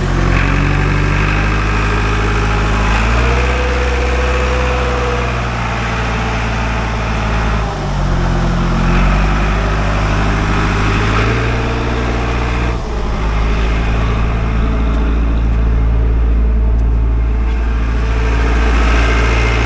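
International Harvester 100E crawler loader's engine running steadily while the machine is driven, its note dipping and recovering briefly about 8 and 13 seconds in.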